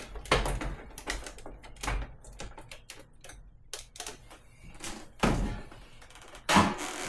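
Irregular clicks, taps and knocks of parts being handled as a cover is fitted back in place inside a refrigerator, with two louder knocks about five and six and a half seconds in.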